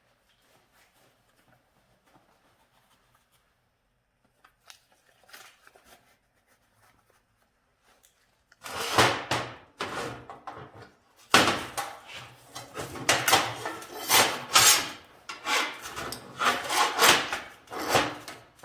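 Rasping strokes of a hand tool rubbing a hard surface, irregular at roughly two a second, starting about nine seconds in after near silence with faint scuffs.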